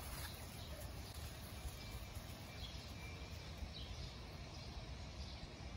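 Faint outdoor ambience: a low steady rumble with a few faint bird chirps now and then.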